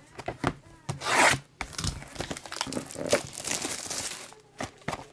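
Clear plastic shrink-wrap being torn and peeled off a cardboard trading-card box, crinkling. A loud rip comes about a second in, then a few seconds of continuous crackle as the film is pulled away.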